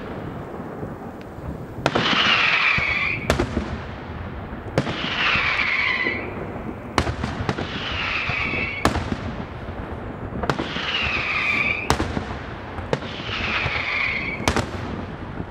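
Daytime aerial firework shells bursting in a steady series of sharp bangs, about one every one and a half to two seconds. Each bang is followed by a whistling sound that falls in pitch for about a second.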